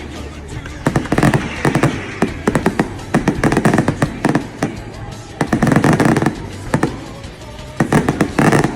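Fireworks going off in rapid strings of sharp pops, in about four bursts separated by short lulls.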